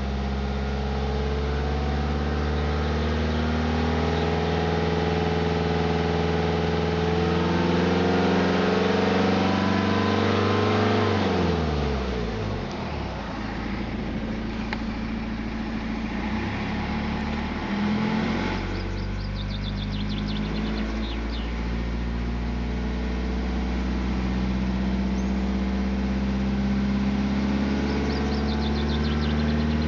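BMW 118d running, with a set of steady tones that sink in pitch and fade about twelve seconds in, then return steady from about eighteen seconds, with a few faint high ticks. The car is being checked for a grinding noise.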